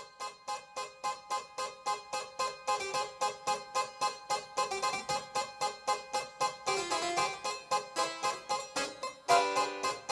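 Solo harpsichord playing a steady pulse of plucked notes, about three a second. A louder, fuller passage comes in near the end.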